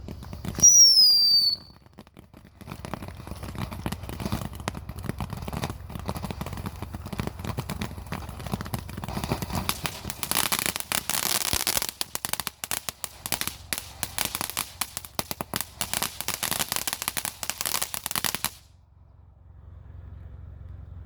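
Small consumer firework going off: a short, loud falling whistle about a second in, then about sixteen seconds of rapid crackling pops that stop suddenly.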